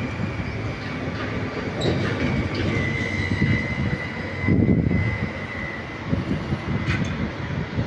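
Stadler FLIRT 3 electric multiple unit pulling slowly away, rumbling over the track. A thin, steady wheel squeal comes in about two and a half seconds in and fades after five seconds, with a few sharp clicks from the track.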